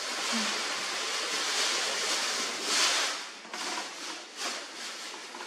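Tissue paper rustling and crinkling as it is pulled out of a paper gift bag, in an irregular run of crackles that is loudest about three seconds in.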